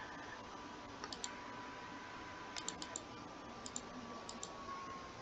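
Computer mouse button clicking about five times, each click a quick pair of ticks as the button is pressed and released.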